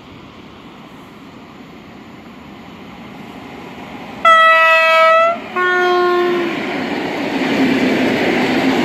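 Regional passenger train's two-tone horn giving the Rp1 "attention" signal: a high note held for about a second, a brief break, then a lower note for about a second, sounded about four seconds in. The train's rumble grows as it nears, and its carriages rolling past get louder toward the end.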